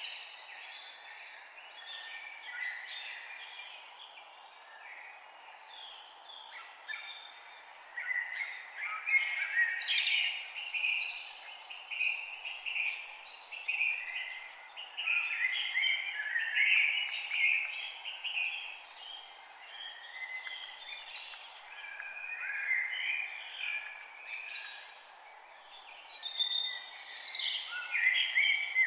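Several songbirds chirping and singing over a faint steady background hiss, the birdsong busiest in the second half.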